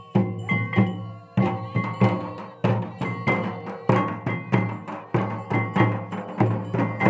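Santal festival drumming: a large kettle drum (tamak') beaten with two sticks and barrel drums (tumdak') playing a fast folk rhythm, about three strokes a second with a deep boom, and some ringing tones held between the strokes.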